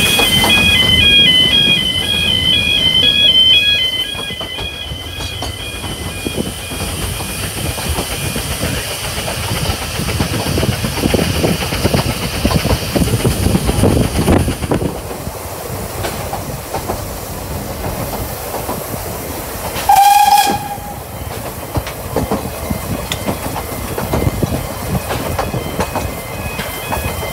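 Narrow-gauge steam train running, heard from an open carriage: a steady rumble and clatter with steam hiss. For the first few seconds a level-crossing alarm pulses in alternating high tones. About twenty seconds in, the locomotive's steam whistle sounds once for about a second. The crossing alarm pattern comes back faintly near the end as the train nears the next crossing.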